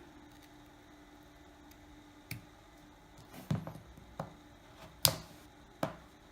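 Sharp clicks and taps of a pry tool working under the snap-on back cover of an Asus Zenfone AR phone, about six in the last four seconds, the loudest about five seconds in.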